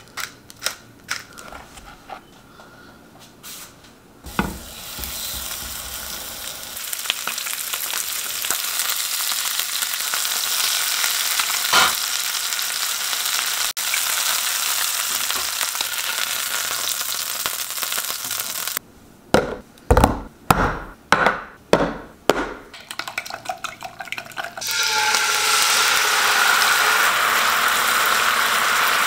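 Light ticks as pepper is shaken over raw chicken thighs, then the thighs sizzle steadily as they pan-fry. A quick run of about ten sharp knocks comes after that. Near the end a loud sizzle and bubbling starts as a garlic sauce cooks in the nonstick pan and is stirred with a wooden spoon.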